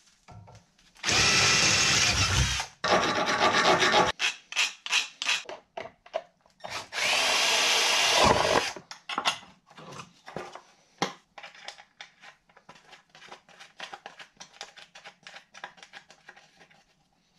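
Cordless drill boring through a metal bracket with a 6.5 mm bit that is blunt, in three runs of a second or two each, the motor pitch rising and levelling off under load in the last run. After that, a long run of small clicks and rattles as the drilled bracket is handled and fitted.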